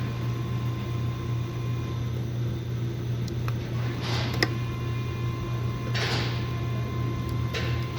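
2016 Ford Taurus engine running at idle with a steady low hum. The mechanic blames the misfire on cylinder 1 on a failed ignition coil. A few brief swishes and one sharp click of handling sound over it.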